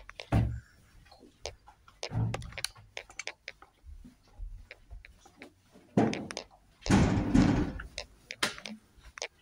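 Irregular clicks and knocks of people moving about and handling things. About six seconds in, and again for nearly a second near the end, there is a loud rustling, scraping noise.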